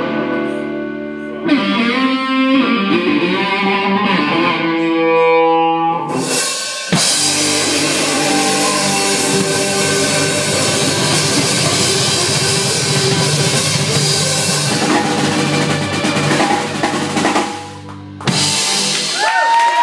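Live rock instrumental on electric guitar and drum kit. Held guitar notes and a single-note guitar line come first; about seven seconds in, the drums and guitar play together loud and dense. Near the end the playing drops away and closes with one last hit.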